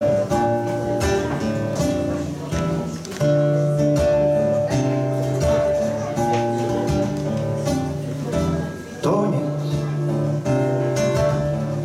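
Two acoustic guitars playing a song's instrumental introduction: strummed and picked chords with ringing, held notes, at a steady pace.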